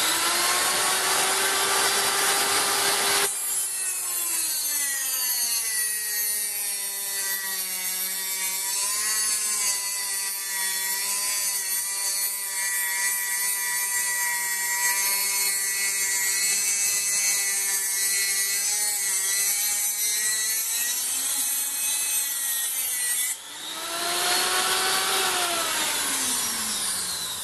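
Hand-held rotary tool with a small abrasive cut-off disc whining at full speed, then cutting through an 8 mm bolt for about twenty seconds, its pitch sagging slightly under load. About 23 seconds in the cut is through, the tool runs free for a moment and is switched off, its whine falling steadily as the disc spins down.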